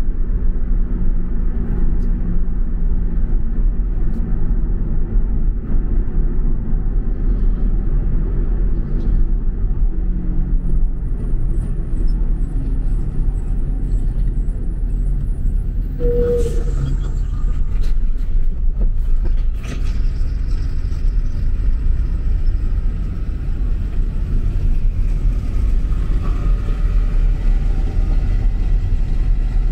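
Steady low rumble of a car driving along a highway, heard from inside the cabin: engine and tyre noise. About sixteen seconds in, a single short tone sounds.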